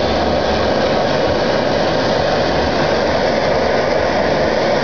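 Handheld gas blowtorch burning steadily against a small brass boiler: a continuous, even hiss with no rhythm.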